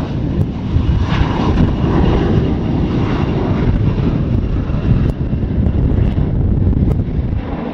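Twin rear-mounted turbofan engines of a Bombardier CRJ regional jet at takeoff power, a loud, steady jet rumble as the plane climbs out.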